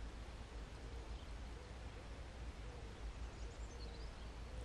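Quiet field ambience: a steady low wind rumble on the microphone, with a few faint bird chirps about three and a half seconds in.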